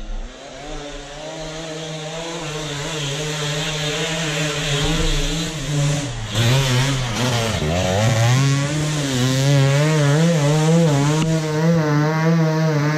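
Hard enduro dirt bike engine revving hard under load on a steep climb, growing louder over the first few seconds. The revs sag briefly a little past halfway, then pick back up and warble as the throttle is worked, and the sound cuts off abruptly at the end.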